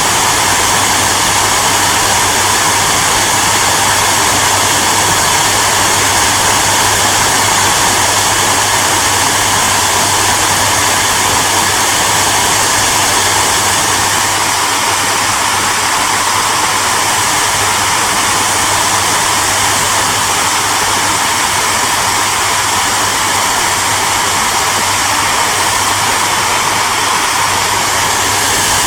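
Hair dryer running steadily: a loud, constant rush of air with a low motor hum underneath.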